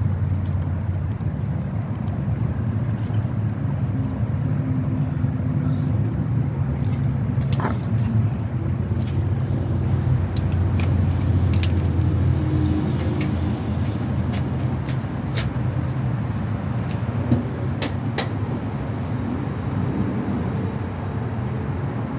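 Steady low mechanical rumble, with scattered light metallic clinks of hand tools working on the driveshaft's fasteners.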